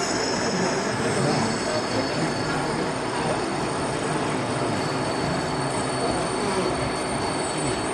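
Model train running on an exhibition layout, with a steady high-pitched whine that sets in about a second in and holds, over the steady background noise of the exhibition hall.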